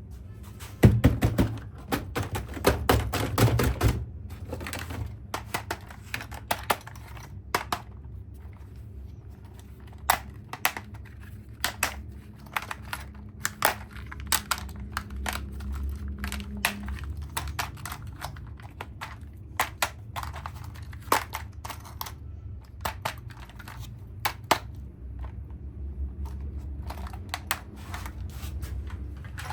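Plastic toys and packaging being handled: irregular clicks, taps and knocks, a dense flurry in the first few seconds and then scattered ones, over a steady low hum.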